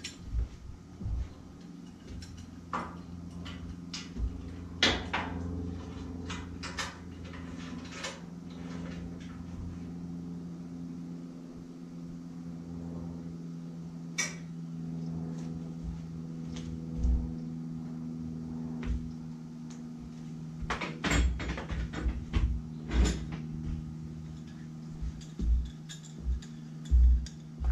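Irregular metal clanks and knocks of clamps and hand tools against a steel truck frame and crossmember while the crossmember is clamped in place, with a cluster of clanks about three quarters of the way through. A steady low hum runs underneath.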